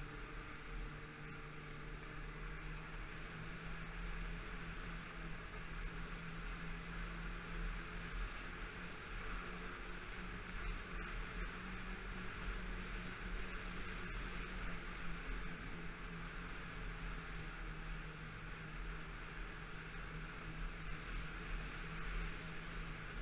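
Snowmobile engine running steadily at trail-cruising speed: an even drone with a hiss over it.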